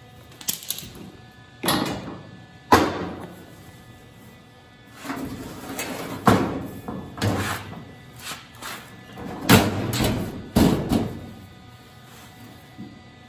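Thin sheet-steel body panel handled and fitted against a car body: a series of uneven metallic clanks and knocks, each ringing briefly, the loudest about three seconds in and again about ten seconds in.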